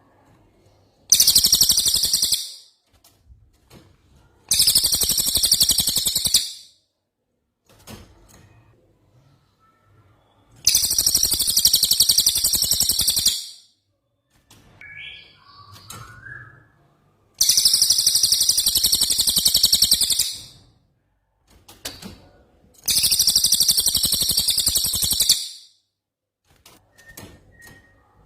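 A songbird's very high, rapid rolling trill ('rol tembak'), repeated in five bursts of one to three seconds with pauses between, from a master recording for tutoring cage songbirds. Faint lower chirps fall in some of the pauses.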